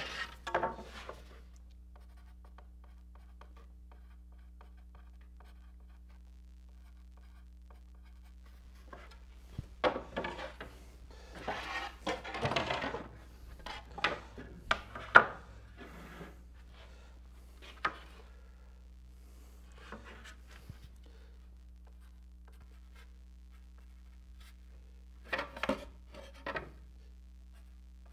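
Wooden kayak paddle blanks being handled and shifted on a wooden workbench: scattered rubs and light knocks, bunched up in the middle and again near the end, over a steady low hum.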